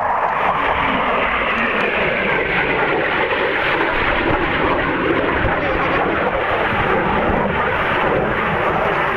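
Eurofighter Typhoon fighter jet flying low past, its twin turbofan engines making a steady, continuous rushing noise.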